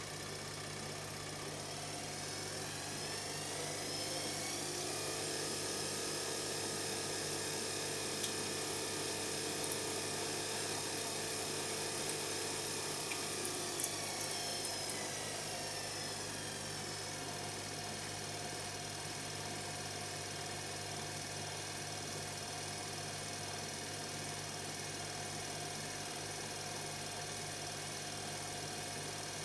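Washing machine motor and drum spinning. The whine rises over the first few seconds, holds, winds down partway through, then keeps running steadily at a lower speed. The brushed motor is dying from a damaged commutator.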